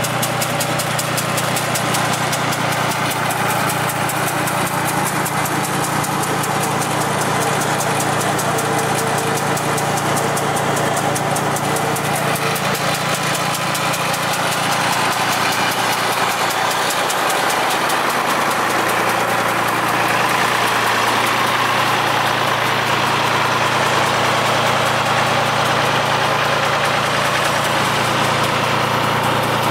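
Vineyard tractor's engine running steadily under way, its pitch dipping and recovering slightly about two-thirds of the way through.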